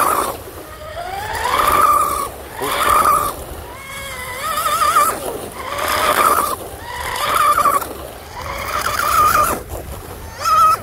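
Oxidean Oxi-digger 34-inch RC outrigger boat's brushless motor whining at high speed in repeated bursts of throttle, each a rising whine that levels off and wavers as the hull skips, with the hiss of spray from the propeller between them.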